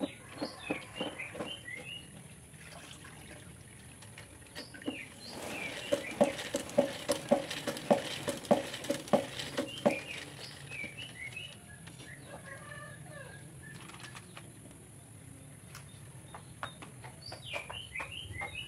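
Plastic spin mop being pumped up and down in its bucket's spinner basket, giving a pulsing whirr at about three pulses a second for several seconds midway, with chickens and small birds chirping and clucking around it.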